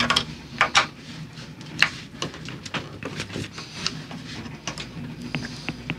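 Screwdriver working the screws of the raw-water pump cover on a Yanmar 4JH45 marine diesel: irregular metallic clicks and scrapes of tool on screw and cover, over a faint low hum.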